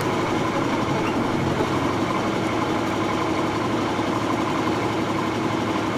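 240D excavator's diesel engine running steadily.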